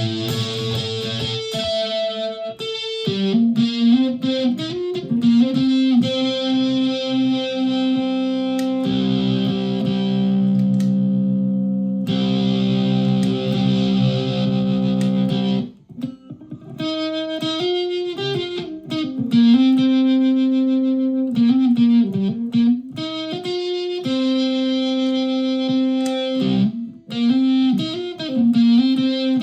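Solid-body electric ukulele played through a homemade clone effects pedal into a PA speaker: single notes and held chords with pitch bends, with a brief break about halfway through.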